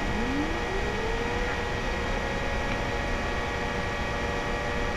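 Synthesized siren tone made in Audacity to imitate a Model 2 warning siren: one pitch winds up from low over about two seconds, then levels off into a steady high wail at its set top pitch of 580 Hz.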